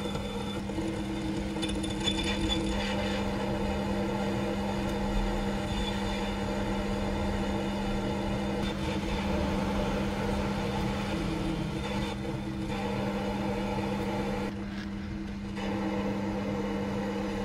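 Proxxon mini lathe running with a steady motor hum while its parting tool cuts into a spinning 304 stainless steel bar under oil. The higher cutting noise briefly drops away about fifteen seconds in.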